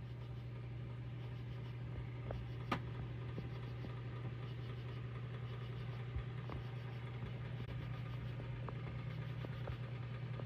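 A steady low mechanical hum, like an engine idling, with a few faint clicks.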